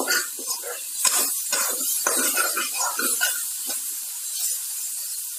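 Vegetables being stirred and fried in a non-stick kadhai with the spices just added: repeated scraping strokes over a steady sizzle. The stirring thins out after about three seconds, leaving mostly the sizzle.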